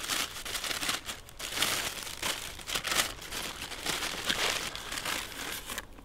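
Paper bakery wrapping crinkling and rustling as a loaf of bread is unwrapped and the paper opened out by hand.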